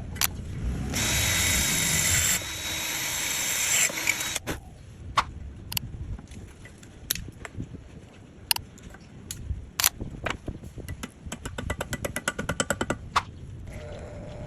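Power drill running for about three seconds, drilling a hole for a plastic wall anchor. Then come scattered sharp knocks and, near the end, a quick run of clicks.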